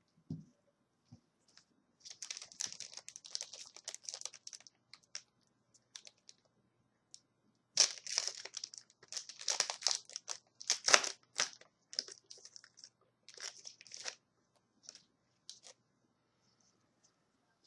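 Foil wrapper of a hockey card pack crinkling and tearing as it is handled and opened, in several irregular bursts of crackle with short pauses between.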